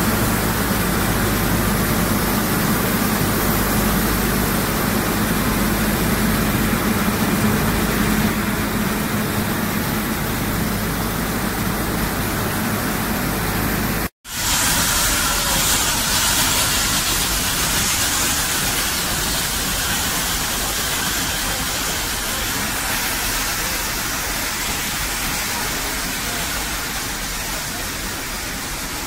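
Steady noise from a Nilgiri Mountain Railway steam locomotive, heard in its cab: a dense hiss over a low hum. After a sudden break about halfway, the moving train is heard from a carriage window as a steady rushing noise.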